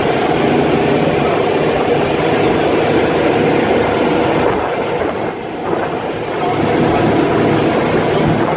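Passenger ferry under way: its engines run with a steady drone under a constant rushing of wind and water, easing slightly for a moment about five seconds in.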